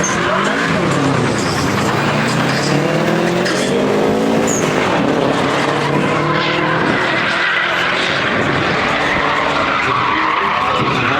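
Car engine revving hard, its pitch rising and falling repeatedly, over continuous tyre squeal from wheels spinning and sliding on the track.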